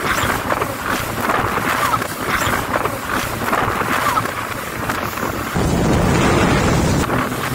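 Wind buffeting the microphone and water rushing and spraying around a jet ski riding at speed over choppy sea. A deeper, louder rush of water and spray comes about five and a half seconds in and lasts over a second.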